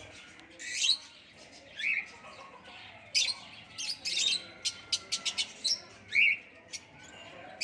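Small parrots squawking and chirping: short shrill calls every second or so, some rising in pitch, with a quick run of sharp chirps about halfway through.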